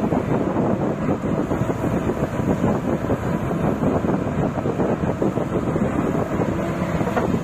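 Hyundai R130 hydraulic excavator running steadily as it works, a dense continuous rumble, with wind buffeting the microphone.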